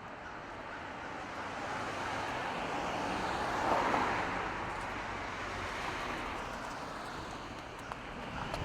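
A vehicle passing by: a rushing noise that swells to a peak about four seconds in and then fades.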